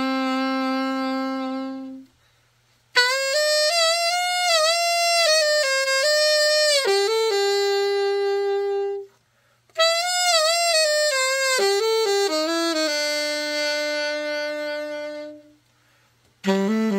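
Selmer Mark VI alto saxophone played solo in slow melodic phrases, with long held notes and some vibrato, broken by three short pauses for breath. It is being play-tested after a full overhaul.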